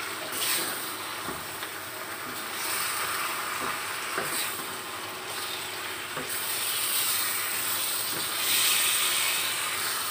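Chicken and fresh shiitake mushrooms sizzling in sauce in a frying pan as a wooden spatula stirs them: a steady hiss that swells now and then, with a few light knocks of the spatula against the pan.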